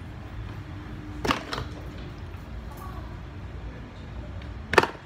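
Two sharp knocks of small objects handled close to the phone, one about a second in and a louder one near the end, over a steady low hum.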